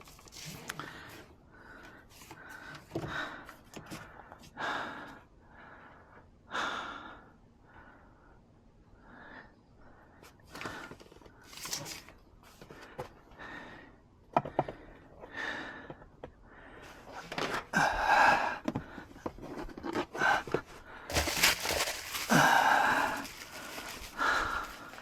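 Scattered clicks, knocks and rustling from hands working on a car's interior trim during disassembly, busier and louder in the second half.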